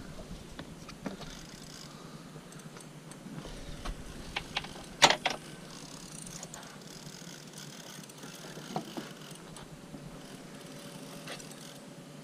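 Fishing reel being cranked against a hooked fish, a soft mechanical sound with scattered small clicks, and a cluster of sharp knocks about five seconds in.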